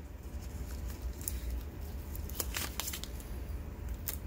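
Paper-backed tape being peeled and crinkled off a thin stainless-steel compressor reed valve: a few short crackles and ticks, over a low steady rumble.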